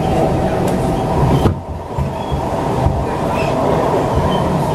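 Siemens C651 metro train running at speed on its elevated track, heard from inside the car: a steady low rumble of wheels and running gear, with a brief drop in the noise about a second and a half in.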